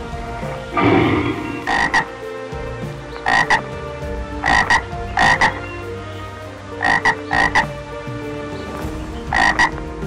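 Frog croaking: a louder, lower call about a second in, then short calls in quick pairs, repeated about every one to two seconds.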